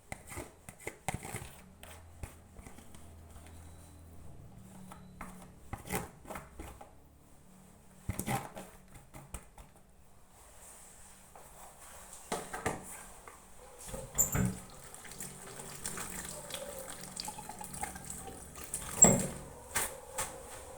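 Boiled potatoes and grated eggs being mashed together in a bowl: irregular wet squelches and knocks of the utensil against the bowl, with the loudest knock near the end.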